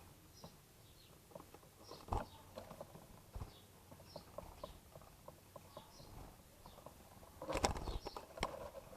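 Birds pecking at scattered cracked corn, a run of quick, light, irregular taps, with faint high chirps now and then. Near the end comes a louder, denser flurry of taps.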